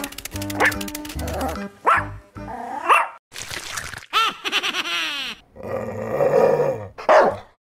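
Playful background music overlaid with a string of short cartoon sound effects: squeaky, voice-like cries that swoop up or down in pitch, one after another.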